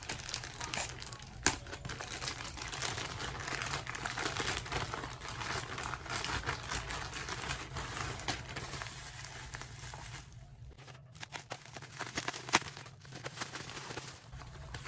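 Plastic courier mailer bag and bubble wrap crinkling and rustling as they are handled and pulled open, with a sharp click about a second and a half in and another later on.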